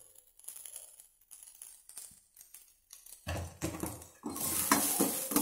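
A few faint taps, then from about three seconds in, chopped shallots sizzle in hot oil in a stainless steel kadai while a spoon scrapes and clinks against the pan as they are stirred. The sizzle is loudest over the last second.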